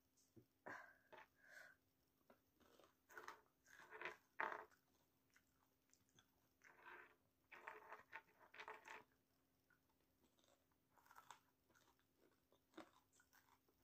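Close-miked chewing of kwek kwek, battered deep-fried quail eggs, in short irregular spells with quiet pauses between.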